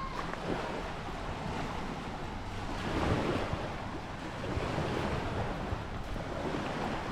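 Surf washing onto a sandy beach, swelling louder about three seconds in and again soon after, with wind rumbling on the microphone.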